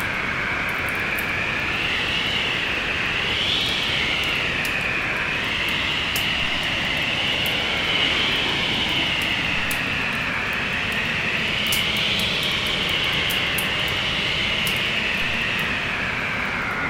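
Steady rushing wind from a winter storm, its howl slowly rising and falling in pitch, with the sharp crackles of a wood fire scattered through it.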